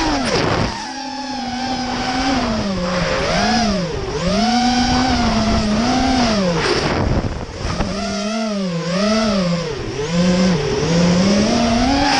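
FPV racing quadcopters' brushless motors and propellers whining, the pitch swooping up and down about once a second as the throttle is worked, with deeper drops about a second in and around seven seconds in.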